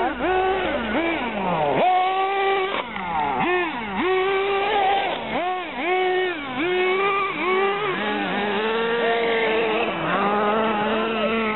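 Radio-controlled off-road buggies racing on a dirt track, their motors revving up and down over and over, with the pitch rising and falling in overlapping arcs.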